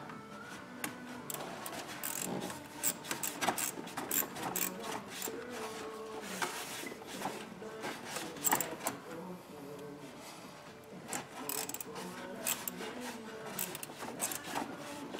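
Hand ratchet clicking in irregular short runs, with scraping of metal against metal, as a 10 mm bolt on a thermostat housing is run down.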